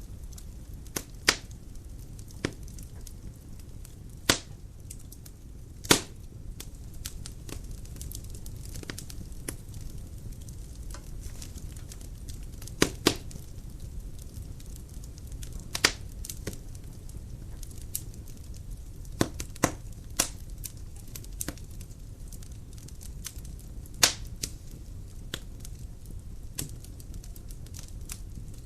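Dry firewood burning in a fireplace: a steady low rumble of flame with irregular sharp crackles and pops, a few of them loud.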